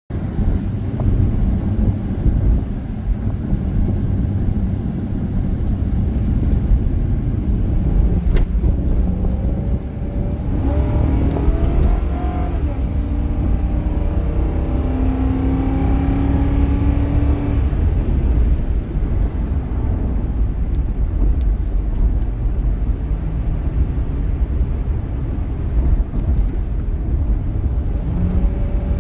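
Ford Crown Victoria's 4.6-litre V8 pulling under acceleration: a steady low engine and road rumble, with tones that climb and fall in the middle and a single click about eight seconds in.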